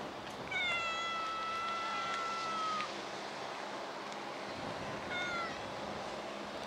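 A cat meowing: one long drawn-out meow that falls slightly in pitch, starting about half a second in, then a short meow about five seconds in.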